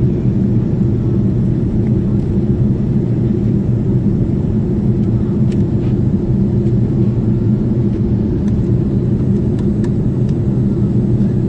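Airliner cabin noise in flight, heard from a window seat: the steady, loud low drone of the jet engines and airflow. A few faint clicks come in the second half.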